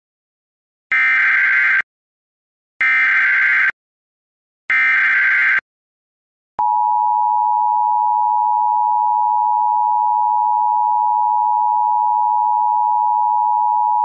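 Emergency Alert System tones: three short bursts of buzzy SAME digital header data, each about a second long, encoding the alert. About six and a half seconds in, the steady two-tone EAS attention signal starts.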